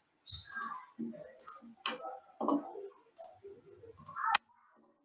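Computer mouse and keyboard clicking: about ten irregular clicks, stopping a little over four seconds in.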